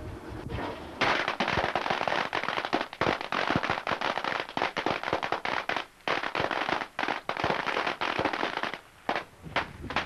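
A long string of firecrackers going off in rapid crackling bangs, starting about a second in and thinning to a few last scattered pops near the end.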